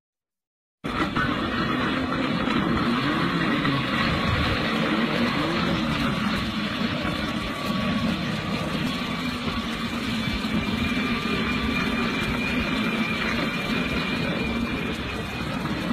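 Steady outdoor street noise with traffic, starting after a second of silence.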